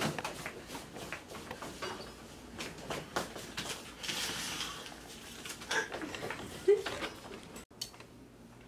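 Scattered light knocks and rustling of papers and small objects being hurriedly handled on an office desk, with a brief faint voice about two thirds of the way through.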